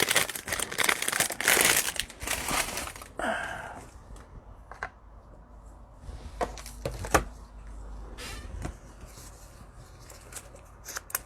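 Cellophane wrappers on trading card packs crinkling for about the first three seconds, then a few scattered light clicks as the packs and cards are handled.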